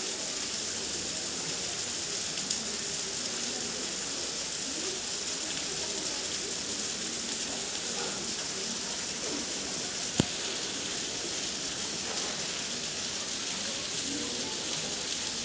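Steady rain falling, an even hiss throughout, with one sharp click about ten seconds in.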